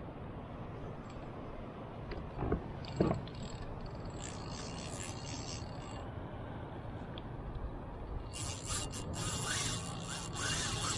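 Spinning reel's drag buzzing in repeated raspy bursts from about eight seconds in, as line is pulled off the reel: a fish has taken the bait on the rod. Two sharp knocks come about two and a half and three seconds in, over a steady low rumble.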